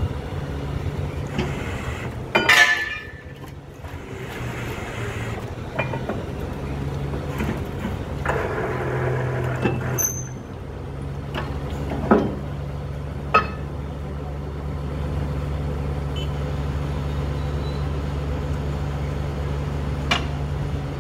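Heavy engine of a borewell drilling rig running steadily. About two and a half seconds in there is a short, loud burst of hiss, and a few sharp knocks come later.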